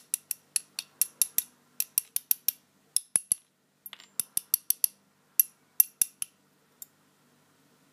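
Quick, sharp metallic clicks and taps as the disassembled American 1105 padlock's core and its small pins and springs are handled, in irregular clusters of a few clicks a second that stop about seven seconds in.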